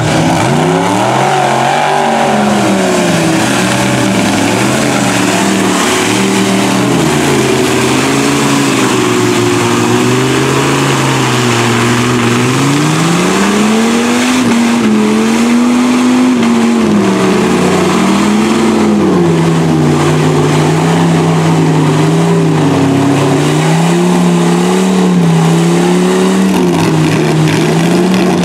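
Lifted mud truck's engine revving hard without a break, its pitch repeatedly rising and falling as it churns through deep mud, with mud spraying off the tyres.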